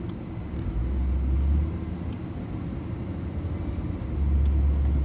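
A car driving along: a low road and engine rumble picked up by a camera mounted at the passenger-side window, swelling about a second in and again near the end, with a few faint clicks near the end.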